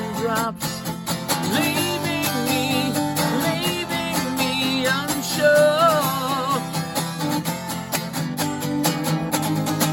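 A song performed on a strummed acoustic guitar with a sung vocal line; the voice holds wavering notes in the middle.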